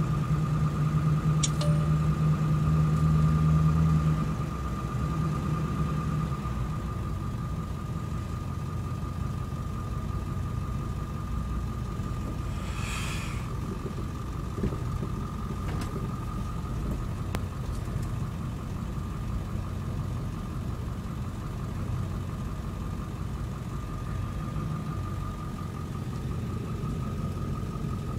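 Pickup truck driving slowly, heard from inside the cab: a steady engine and road rumble, with a louder low hum in the first few seconds. A thin, steady high tone runs along under it.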